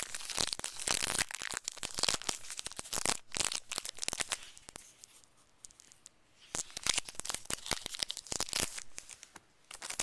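Foil wrapper of a Pokémon TCG booster pack being torn open and crinkled by hand: a run of ripping and crackling, a quieter pause in the middle, then a second burst of crackling.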